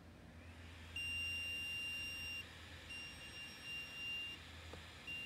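Auber SYL-2615 smoker controller sounding its pit low-temperature alarm, the pit having dropped below the 200°F alarm setting. It is one steady high electronic tone, beeping three times in long beeps of about a second and a half with short gaps, starting about a second in.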